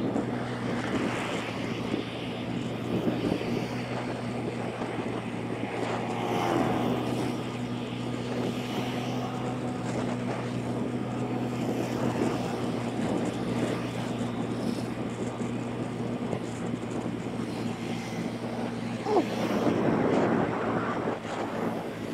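Motorbike engine running at a steady cruising speed, a constant drone with wind and road noise. There is a short rise in pitch and loudness about nineteen seconds in.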